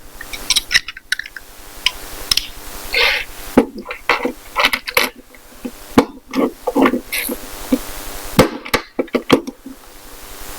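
Small metal lock parts knocking and clinking as a vintage cabinet door lock is worked on with hand tools, with several sharp knocks scattered through.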